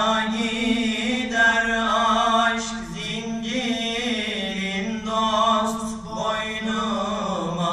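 Two young male voices singing an ilahi, a Turkish Islamic devotional hymn, unaccompanied, in long ornamented notes that bend in pitch, with short breaks about three and six seconds in.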